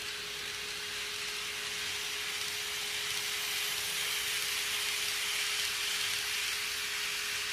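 Model 651 series train running along the track past the camera: a steady hiss of wheels and motor with a steady hum underneath, growing a little louder as the cars pass close.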